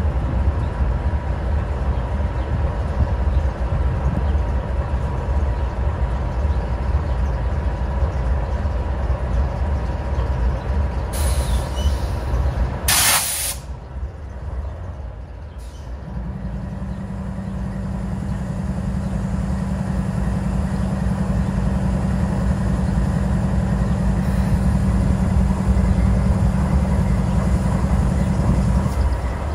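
GE Dash 9-44CW diesel locomotive idling with a steady low rumble from its 16-cylinder engine. About halfway through, a sharp blast of air hiss. A few seconds later, a steady drone comes in and grows louder until just before the end.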